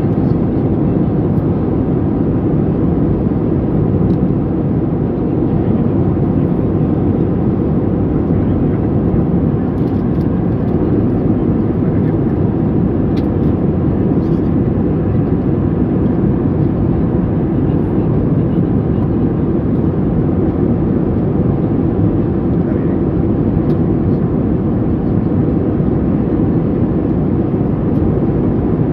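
Steady cabin noise of a Boeing 737 MAX 8 in cruise, heard from a window seat over the wing: an even low rumble of airflow and CFM LEAP-1B engines that holds level throughout.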